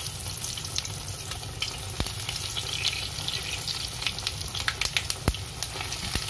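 Sesame-coated chicken patties deep-frying in hot oil: a steady sizzle with many sharp crackles and pops, which come from the sesame seeds popping in the oil.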